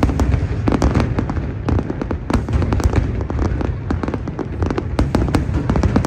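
Fireworks display: many sharp bangs and crackles in quick succession over a steady low rumble.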